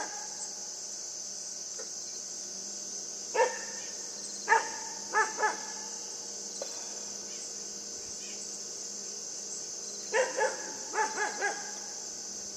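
Great Pyrenees–Siberian Husky mix puppy barking at a deer: four short barks about three to five seconds in, then another run of about five barks near the ten-second mark, over steady high chirring of insects.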